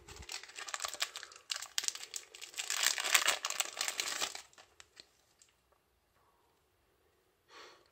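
Foil booster-pack wrapper crinkling and tearing as it is opened by hand: a dense crackle of many small sharp clicks for about four and a half seconds, loudest just before it stops.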